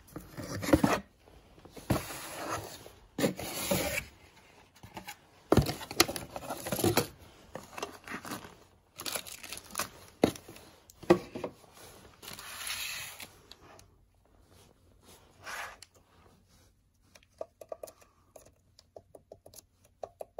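Plastic wrapping and cardboard packaging rustling and crinkling in irregular bursts as a boxed CNC motion controller and its bagged accessories are handled. Near the end this gives way to a run of small light taps, about three or four a second, on the controller's keypad.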